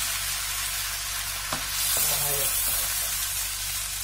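Rice and diced vegetables sizzling in oil in a nonstick frying pan as a wooden spoon stirs them, the rice toasting in the oil. The sizzle swells briefly about two seconds in, and the spoon gives one light tap on the pan about a second and a half in.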